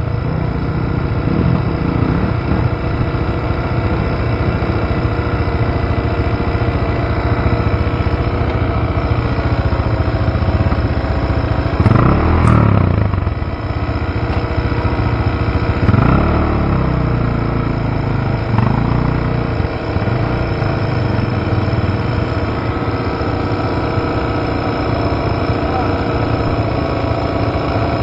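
Several dirt bike engines idling steadily, with an engine revving up and back down a few times near the middle.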